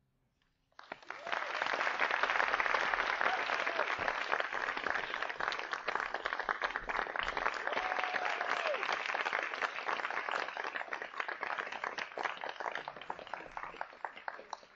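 Audience applause, breaking out about a second in after a moment of silence and continuing, tapering off slightly near the end.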